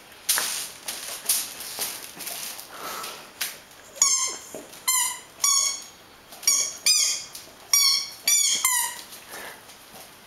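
Squeaky toy ball squeezed in a Great Swiss Mountain Dog's jaws: after a few seconds of rustling and snuffling, it squeaks in a quick run of about nine short squeals, roughly two a second.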